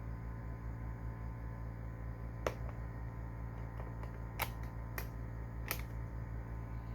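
Four sharp clicks, with a few fainter ones between, over a steady low hum.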